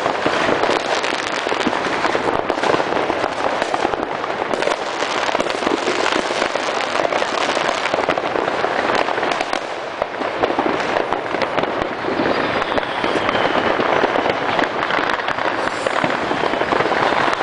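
Many fireworks and firecrackers going off at once: a dense, continuous crackling and popping, steady in level with no single big boom. A faint falling whistle sounds about three-quarters of the way through.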